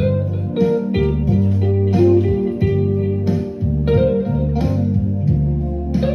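Background music: guitar-led instrumental with a bass line and a steady beat.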